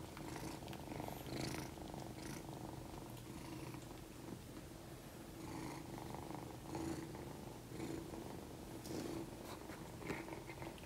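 Kitten purring, quiet and steady, swelling and easing with its breathing.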